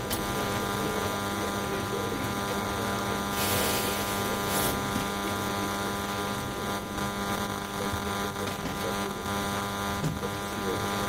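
Steady electrical mains hum with a dense stack of overtones. A brief rush of hiss comes about three and a half seconds in, and a shorter one a second later.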